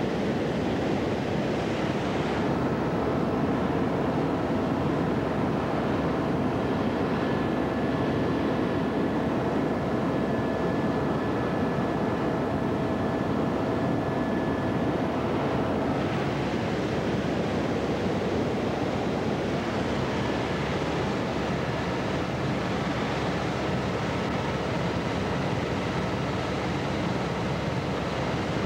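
Steady cabin noise of a small aircraft in flight: engine and airflow make a constant rushing drone, with faint steady tones coming and going in it.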